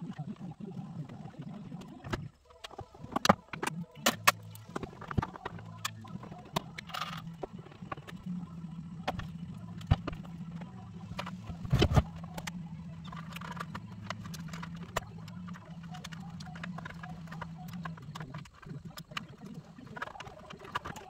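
Scattered clicks, knocks and rattles of parts and tools handled in a car's dashboard, with a louder thump about twelve seconds in, over a steady low hum.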